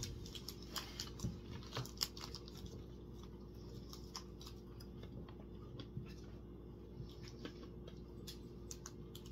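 Faint, scattered crunching and clicking of hard candy being chewed, over a steady low hum.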